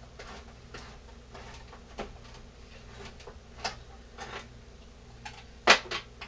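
Can opener working on a tuna can: a run of irregular sharp clicks and ticks, with one louder clack near the end.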